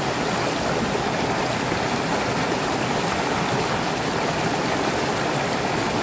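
Small waterfall on a mountain stream: water pouring over a rock and splashing into the pool below, a steady, even rush.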